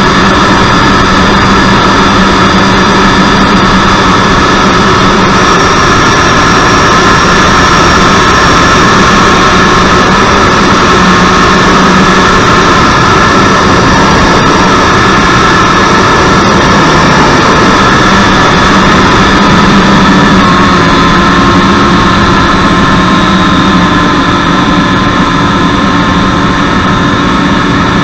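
Electric ducted fan of a Freewing 90mm T-45 Goshawk model jet, driven by its outrunner motor, running steadily at flight power and heard from inside the fuselage. Its tone shifts a little after about twenty seconds, and it eases slightly near the end.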